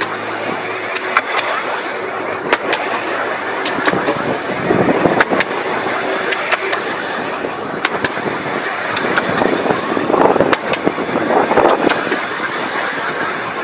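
Narrow-gauge electric tram running along the track: a steady rolling rumble of wheels on rail, with sharp irregular clicks and a few brief swells in the noise.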